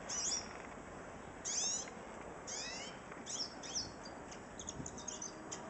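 Female hooded siskin calling: three drawn-out, down-slurred whistled calls in the first three seconds, then a quick run of short chips.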